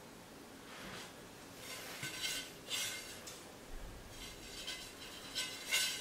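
Wood-look porcelain floor tile being handled and laid: several short, faint scrapes and clinks of hard tile against mortar and neighbouring tiles.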